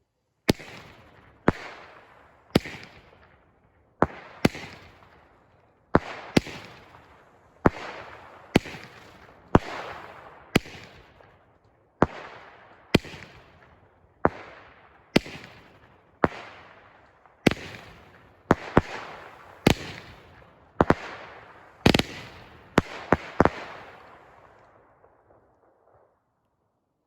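Winda 'Criss Cross' 200-gram consumer firework cake firing its crossette shots, about two dozen sharp reports roughly one a second, each trailing off in a fading rush of noise. The shots bunch up near the end, the last one about 23 seconds in, then the sound dies away.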